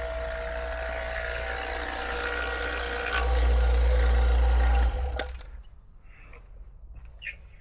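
HVAC vacuum pump running steadily with a low hum, evacuating a heat pump's refrigerant lines after a reversing valve replacement; the sound gets louder about three seconds in and cuts off abruptly about five seconds in, leaving a few faint clicks.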